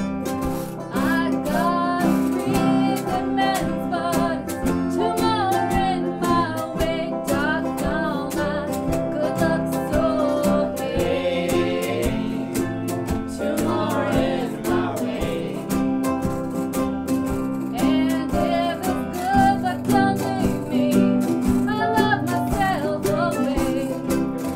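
A band playing a song: strummed guitar keeps a steady beat, with a wavering melody line carried over it.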